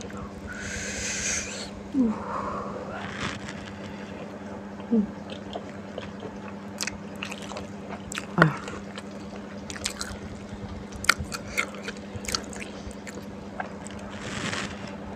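Close-up eating sounds: chewing and biting into fried kwetiau noodles and crispy fried wontons, with crunches and wet mouth clicks, over a steady low hum. Two short breathy hisses, one just after the start and one near the end.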